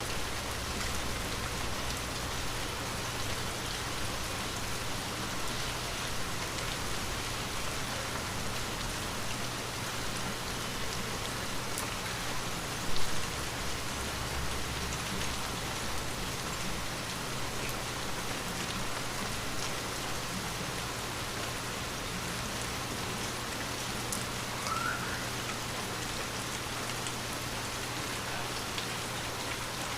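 Light rain falling steadily, an even patter of drops on the ground and foliage, with one brief louder thump about halfway through.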